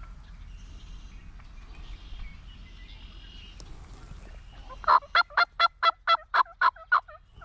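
Wild turkey gobbling: a loud, rapid rattling series of about ten notes lasting about two seconds, starting about five seconds in.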